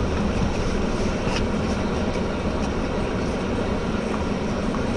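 Steady road and engine noise of a moving car, heard from inside the cabin through a dash-cam microphone, with a faint click about a second and a half in.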